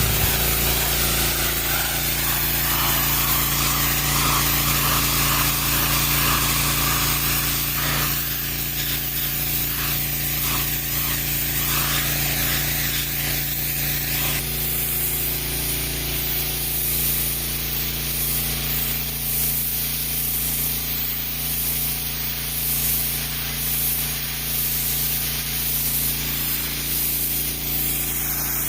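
Stihl RB800 gas pressure washer, powered by a Kohler engine, running steadily while its high-pressure water jet hisses against wood. The spray sound shifts about eight seconds in and again around fourteen seconds in, as the jet moves.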